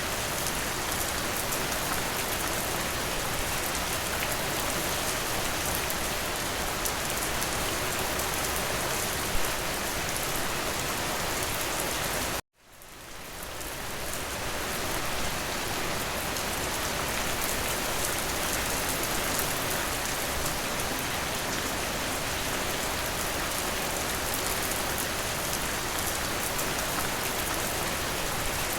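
Steady rain falling against a window, an even hiss with fine drop ticks. About twelve seconds in it cuts out suddenly to silence, then fades back up over a couple of seconds, as at a splice in a looped recording.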